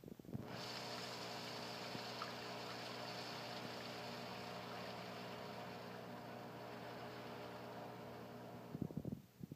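A steady mechanical hum with a hiss, like a small motor or pump running. It switches on about half a second in and cuts off abruptly near the end, with a few clicks as it stops.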